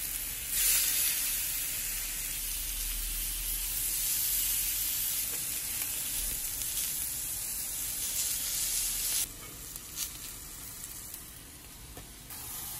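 Seasoned chicken breasts sizzling in olive oil on a hot ridged grill pan, a steady frying hiss that swells about half a second in. About nine seconds in the sizzle cuts off sharply to a much quieter hiss, with a brief click soon after.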